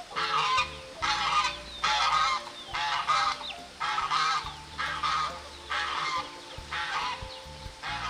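Domestic geese honking over and over, about one loud call a second.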